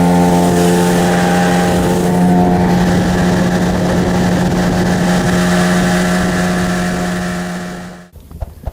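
Boat's outboard motor running steadily at constant speed, then dying away and cutting out about eight seconds in.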